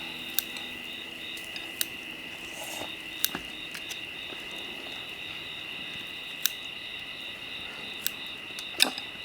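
Night insects chirring steadily in a high continuous band, with about six sharp irregular pops from a crackling wood fire, the loudest near the end.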